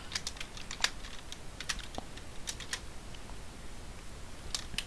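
Typing on a computer keyboard: irregular key clicks, a few strokes at a time with short pauses between them.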